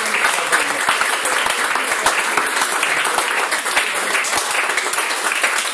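Small crowd applauding with dense, steady clapping.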